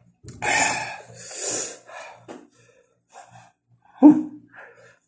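A man breathing hard and gasping, his mouth burning from very spicy noodles, with a short sharp sound about four seconds in.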